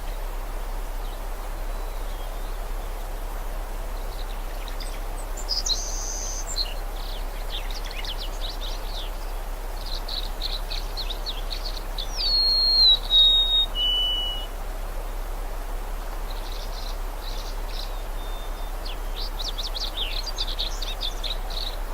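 Songbirds chirping in quick trills over a steady background wash. About twelve seconds in, a louder clear whistled call steps down in pitch over three notes.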